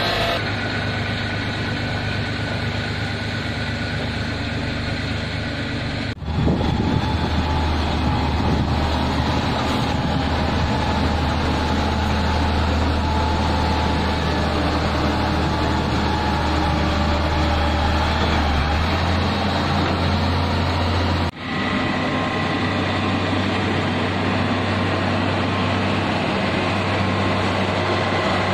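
Heavy road-construction machinery engines running steadily with a deep low hum, broken by two sudden cuts about six and twenty-one seconds in, after which the engine sound shifts slightly.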